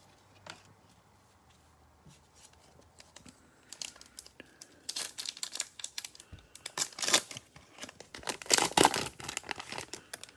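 Plastic cellophane wrapper of a football trading-card cello pack being torn open and crinkled: quiet at first, then a run of quick rips and crackles from about four seconds in.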